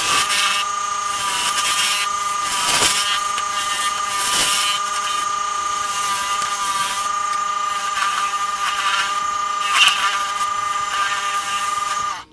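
Wood lathe running with a steady motor whine while a turning tool cuts the spinning canary wood and bloodwood workpiece in repeated passes; the sound cuts off suddenly near the end.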